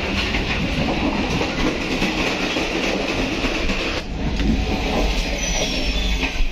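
A moving passenger train, heard from on board: a steady rumble and clatter of wheels on the rails with a hiss on top. The noise changes and the hiss softens about four seconds in.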